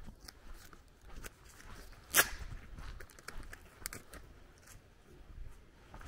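Footsteps crunching on a dirt and gravel track at a walking pace, with one much louder sharp crack about two seconds in.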